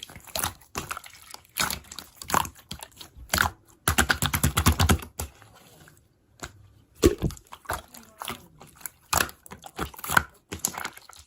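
Rapid wet clicking and popping, irregular throughout, with a fast run of clicks about four seconds in.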